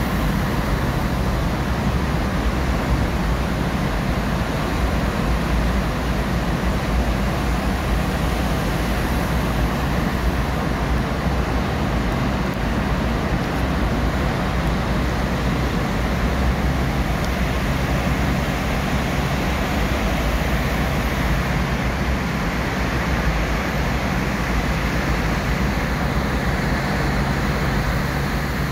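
Steady road and engine noise inside a moving car's cabin while driving through a road tunnel, a deep even rumble.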